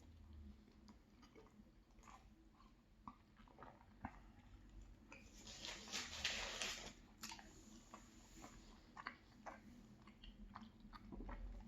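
Close-up chewing of soft pastry, with soft mouth clicks scattered throughout and a louder, noisier stretch of about a second and a half around the middle.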